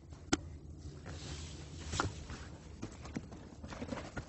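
A hiker's footsteps on a trail: irregular steps, with sharper knocks about a third of a second in and again about two seconds in.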